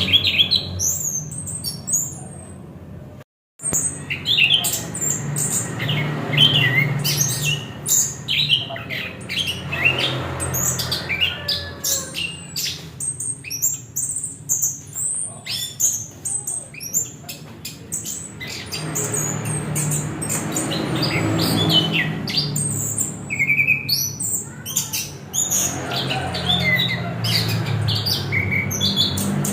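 Chestnut-capped thrush (anis kembang) singing a rapid, varied run of chirps, whistles and harsh squawky notes. The sound breaks off completely for a moment about three seconds in.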